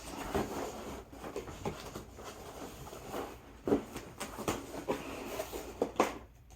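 Handling noise from a cardboard box and its contents: steady rustling broken by scattered light knocks and clicks, a few sharper ones in the second half.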